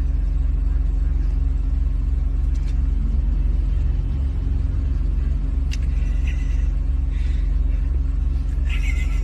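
Steady low rumble of a car heard from inside the cabin, engine and road noise with an even hum.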